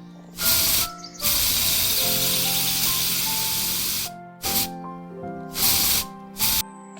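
Spray hissing in bursts: a short spray, then one long spray of about three seconds, then three quick short sprays, over soft background music.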